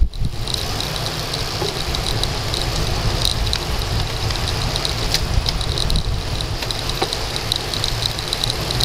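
Wind buffeting the microphone of a handlebar-mounted action camera on a road bike descending at speed, over steady tyre noise from the asphalt, with a fast, high ticking throughout.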